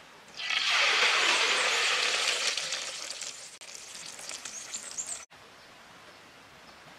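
Hot cooking oil sizzling and crackling in an iron wok over a wood fire. It starts suddenly and loud, fades over a few seconds, and cuts off abruptly about five seconds in, leaving only a faint steady background hiss.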